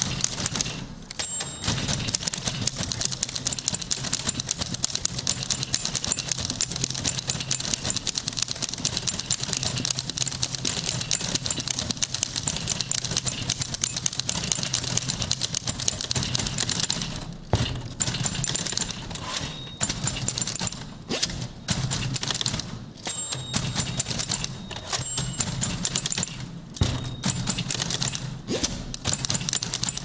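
Several manual typewriters played together as a percussion ensemble: a dense, rapid clatter of keystrokes. About halfway through it breaks into rhythmic bursts with short pauses, with the dings of the carriage-return bells.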